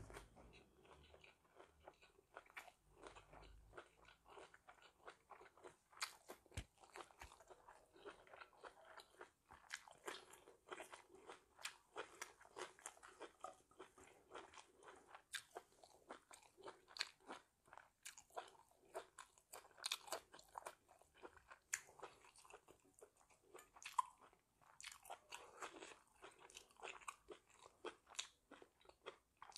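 Quiet, close-up chewing: a person eating crisp fresh vegetables, with many small sharp crunches.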